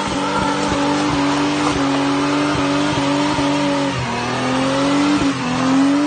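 Car engine held at high revs during a burnout, a wheel spinning and squealing on gravelly ground. The revs sag about four seconds in and climb back up.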